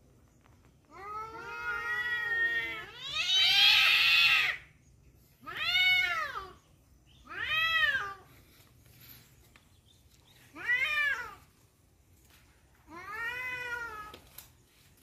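Tomcat yowling (caterwauling) in a rivalry over a female cat: six drawn-out, wavering yowls that rise and fall in pitch. The first two are long, the second the loudest, and the four after them are shorter.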